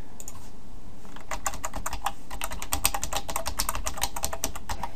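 Typing on a computer keyboard: a fast run of keystrokes starting about a second in and stopping shortly before the end.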